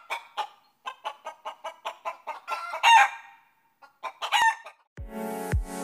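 A hen clucking in a quick run, about five clucks a second, then breaking into two longer, louder calls. Music with a heavy regular beat comes in near the end.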